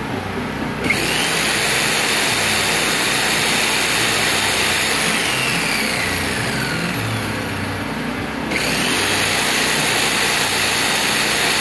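Electric jigsaw switched on about a second in, its motor whining steadily, stopping briefly near the end and starting again, over the steady drone of a Predator 4000 generator's engine carrying it as a load.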